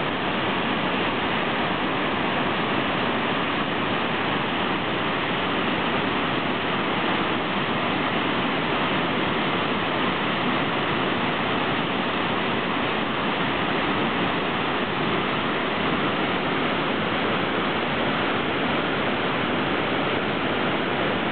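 Waterfall pouring, a steady rushing of falling water that does not change.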